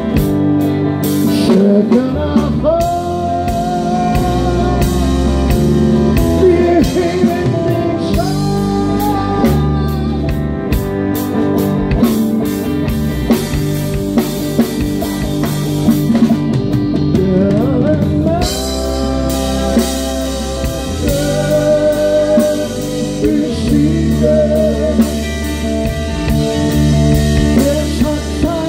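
Live rock band playing electric guitars and a drum kit, with a held lead line that bends in pitch over a steady beat.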